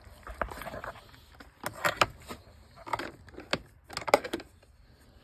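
Irregular clicks and knocks from handling a compression tester's hose and fittings as it is threaded into a chainsaw's spark plug hole.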